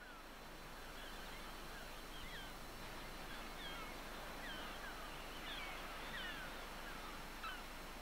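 Gulls calling over and over, short high cries that mostly slide down in pitch, over a steady background hiss.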